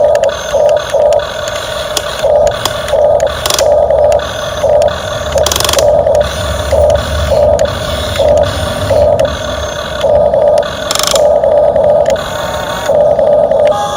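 Huina RC excavator's small electric gear motors whirring in short, stop-start bursts as the arm and bucket are moved, with the odd click.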